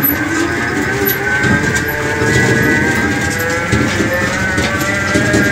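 Electric tuk-tuk's drive motor whining, its pitch rising slowly as the three-wheeler gathers speed, over a rumble of tyres on block paving and rattles from the loose cab.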